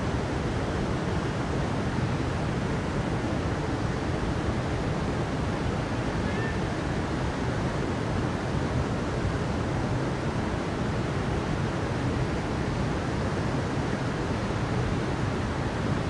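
Mountain stream rushing over rocks: a steady, unbroken wash of water noise.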